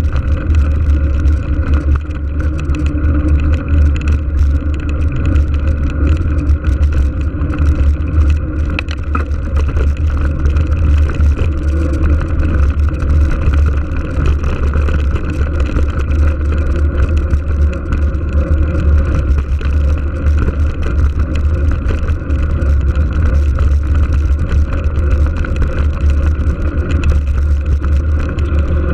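Steady, loud wind rumble on an action camera's microphone during a bicycle ride, with the rolling noise of tyres on asphalt beneath it.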